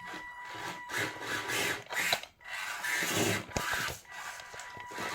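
1/24-scale RC4wd micro crawler driving with its F130 electric motor, the motor and gears whirring in uneven surges as it climbs, with scraping and knocking of tyres and chassis over toys.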